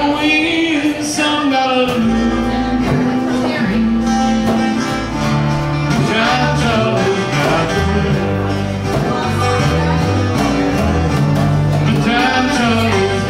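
Live country-style acoustic band playing a slow song: strummed acoustic guitars under a lap steel guitar whose notes slide up and down in pitch.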